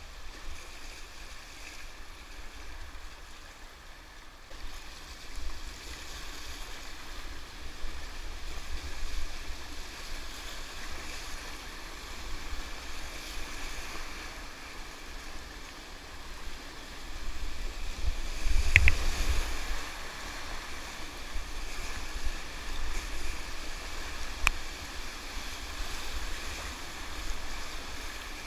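River water rushing steadily, with low wind rumble on the microphone. A sharp knock comes about two-thirds of the way through, and a fainter click a few seconds later.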